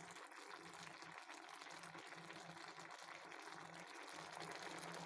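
Pot of coconut-milk stew with green beans, radish and meatballs boiling on the stove: a faint, steady bubbling.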